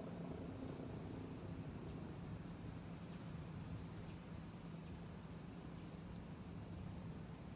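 Faint, short high-pitched chirps, about a dozen, scattered irregularly over a low steady background rumble.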